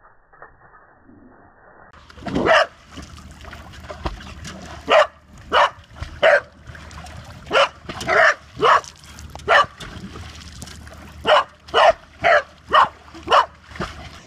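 Corgi barking repeatedly at water spraying into a pool, about a dozen short, sharp barks in irregular runs, starting about two seconds in.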